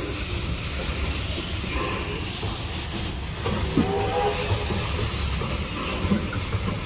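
Victorian Railways A2-class steam locomotive hissing steam with a low rumble as it moves slowly along the track.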